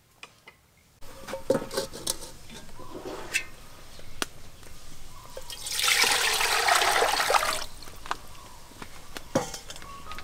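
Water poured from a metal bowl into a metal pot: a steady splashing rush of about two seconds, starting about six seconds in. Before it come scattered clinks and knocks.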